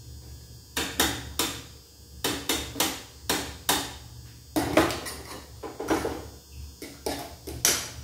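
A metal utensil repeatedly knocking and clinking against cookware as instant fried noodles are stirred and mixed with oil and soy sauce. The knocks are sharp and irregular, about two a second.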